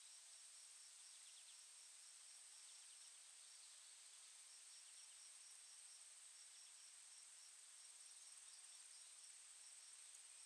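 Faint forest insect sound: a steady high-pitched drone with a cricket-like chirp repeating about three times a second, and a few faint higher chirps over it.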